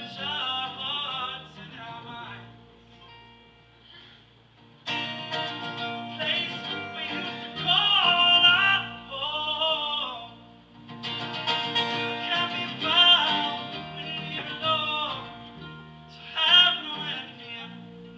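Live acoustic band music: acoustic guitars playing under a singing voice. The voice comes in several long, drawn-out phrases with quieter guitar-only gaps between them.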